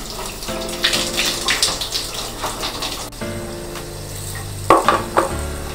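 Water spraying from a handheld shower head over a squid jig held in the hand, rinsing debris off its hooks, with background music underneath.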